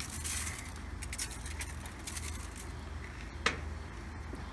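A salt shaker being shaken over fish fillets on tin foil, a quick run of light rattling shakes in the first second or two. About three and a half seconds in comes a single sharp knock, with a steady low hum underneath.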